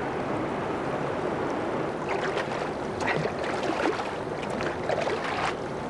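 Pink plastic toy shovel scooping and splashing in shallow river water, with water pouring back off the scoop. Repeated short splashes from about two seconds in, over a steady rush of moving water.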